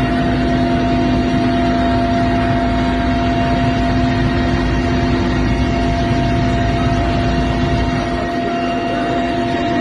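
Helicopter cabin noise: a steady engine and rotor drone with several constant whining tones over a broad rushing noise. The deepest rumble eases somewhat about eight seconds in.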